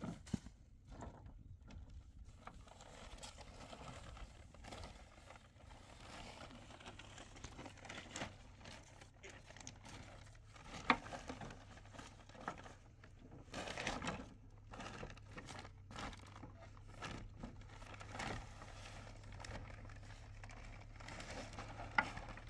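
Irregular rustling and handling noises with scattered short clicks, the sharpest about 11 seconds in, over a faint steady low hum.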